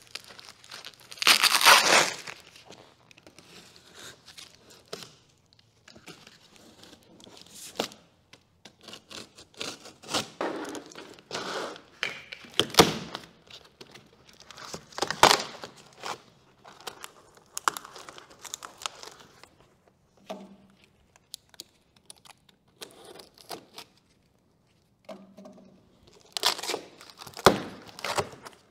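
A cardboard shipping box being cut open with a utility knife and pulled apart by hand: irregular ripping of packing tape and cardboard, crinkling and the odd thunk as the box is handled. The loudest rip comes about a second and a half in, with further bursts later.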